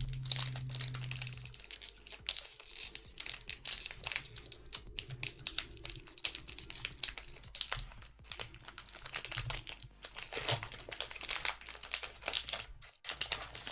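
Foil wrapper of a Pokémon card booster pack crinkling and being torn open, a dense run of irregular crackles.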